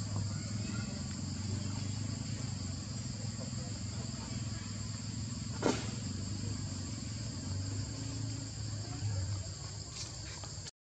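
Steady high-pitched insect chorus holding two pitches throughout, over a low hum, with one sharp click about halfway through.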